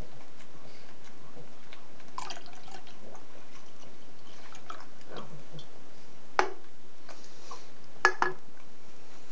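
Soda poured from an aluminium 7-Up can into a drinking glass, liquid dribbling in. A sharp knock comes past the middle, and near the end a double knock as the can is set down on the table.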